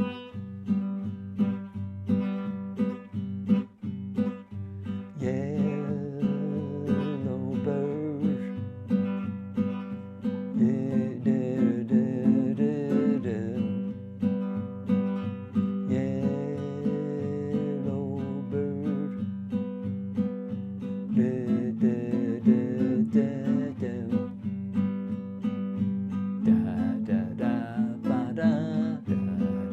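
Acoustic guitar strummed in steady eighth notes: each downstroke rings and each upstroke is muffled by lifting the fretting fingers off the strings. A man's voice sings the melody over it in several phrases.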